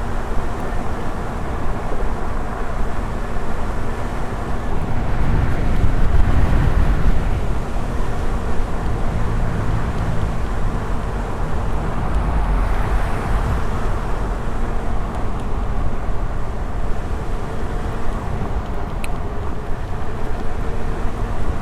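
Riding an electric unicycle: wind rushing over the microphone and tyre noise as a steady rumble, with a faint steady hum underneath. The rumble swells about five seconds in and again later.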